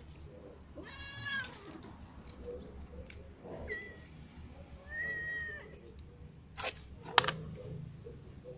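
A cat meowing three times: a first meow about a second in, a shorter one near the middle, and a third soon after. Two sharp clicks follow near the end, the second the loudest sound of all.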